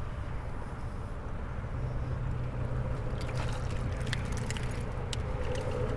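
A flounder being reeled to the boat and swung out of the water: a run of sharp clicks and splashes about halfway through, over wind rumble on the microphone and a steady low hum.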